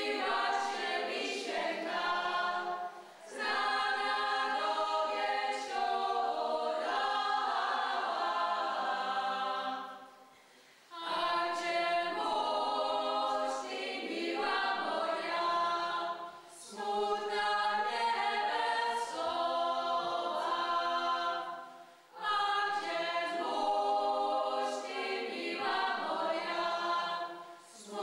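A choir singing unaccompanied, in sustained phrases broken by short pauses, the longest about ten seconds in.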